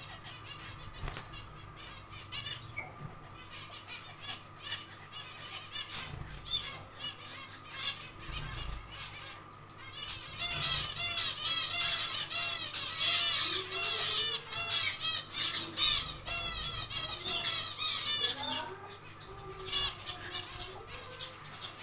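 Zebra finches calling and chattering. The calls are scattered at first, then become much busier and louder about halfway through, in quick runs of short repeated chirps.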